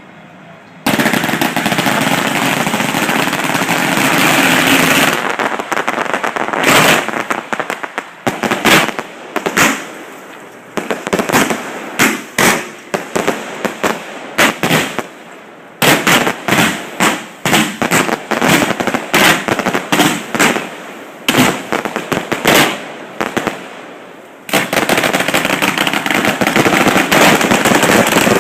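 Fireworks display going off, loud. A dense barrage at about a second in breaks into a long run of separate sharp bangs, with further dense barrages in the middle and near the end.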